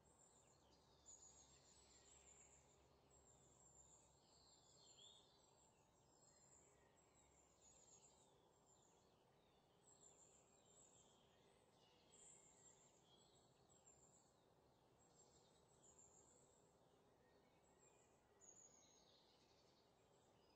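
Near silence, with only very faint high chirp-like sounds.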